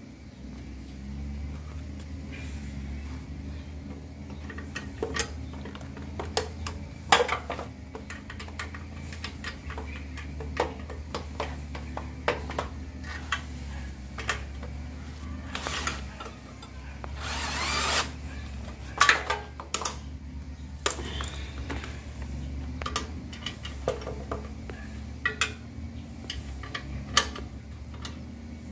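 Metal parts clinking and knocking as a reverse gearbox, chain and sprockets are fitted, with a few short runs of a cordless drill/driver, one of about a second near the middle. A steady low hum sits underneath.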